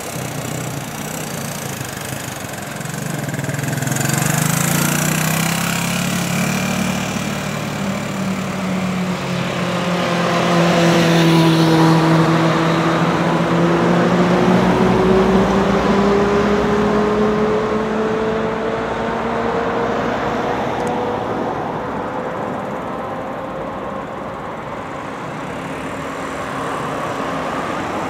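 Motorcycle engine running, its pitch rising early on and then climbing slowly again as it pulls along, loudest around the middle before easing off.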